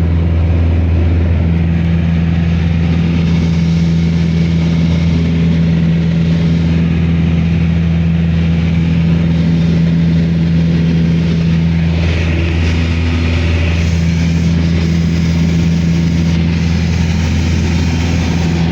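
Steady engine drone heard from inside a vehicle: a deep hum with a steady tone above it over even noise, unchanging throughout.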